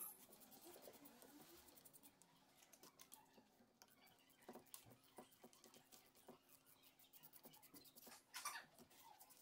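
Faint, scattered clicks and light taps, with a slightly louder rustle or scrape about eight and a half seconds in.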